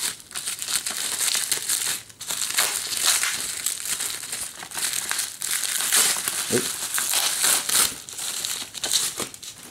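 Plastic bubble wrap crinkling and crackling as hands unwrap it, with a short lull about two seconds in.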